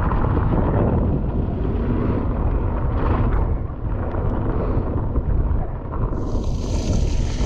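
Wind buffeting the camera microphone while a mountain bike rolls fast over a wet gravel trail, with a brief spraying hiss near the end as the tyres throw up water.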